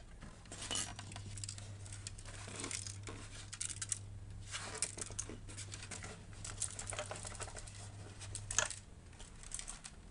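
Small plastic and metal parts of a PlayStation 4 being handled during disassembly: irregular clicks, taps and rustles. Under them runs a low steady hum that stops near the end.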